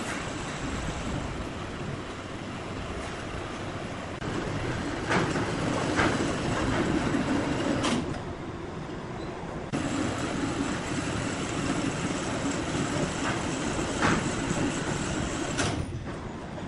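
Sawmill machinery running: a steady mechanical din with a few sharp knocks and clanks.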